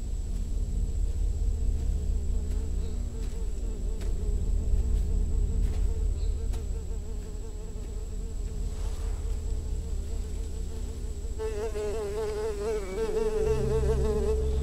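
Flies buzzing over a heap of rotting carcasses, a wavering buzz that swells and comes close about three-quarters of the way through. A steady low drone runs underneath.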